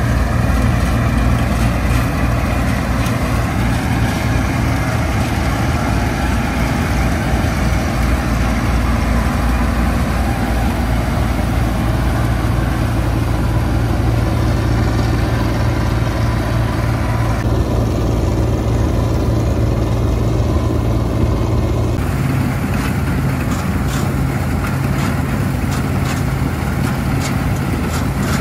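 Bizon Super Z056 combine harvester's diesel engine running steadily. Its note shifts slightly about three-quarters of the way through.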